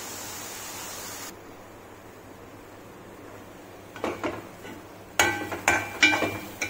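A steel spoon stirring and knocking against the rim of a metal kadai: a few soft scrapes about four seconds in, then about five sharp, ringing clinks near the end. A steady hiss at the start cuts off suddenly about a second in.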